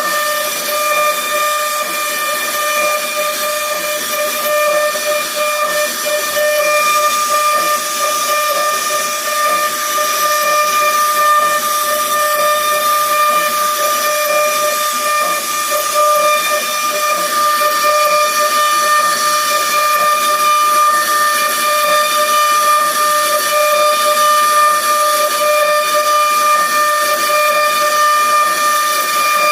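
CNC wood router running steadily, its spindle giving a constant high whine over the hiss of the bit cutting into a wooden board.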